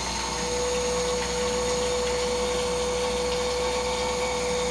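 CNC milling machine's spindle running steadily at about 4500 RPM with a 3/16-inch end mill, giving a steady hum with a held whine, while flood coolant splashes over the aluminium part.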